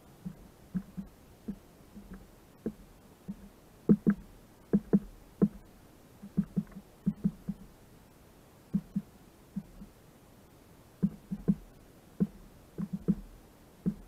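A small black-capped tit pecking at bait on a wooden log: irregular sharp knocks on wood, often in quick pairs or threes.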